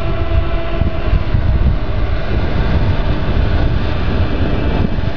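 Wind buffeting the microphone in a loud low rumble, with a faint steady hum that fades out about a second in.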